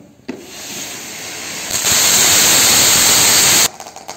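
Lion-shaped crackling fountain firework spraying sparks with a hiss that builds. It becomes much louder and denser for about two seconds, then cuts off suddenly, followed by a few faint crackles.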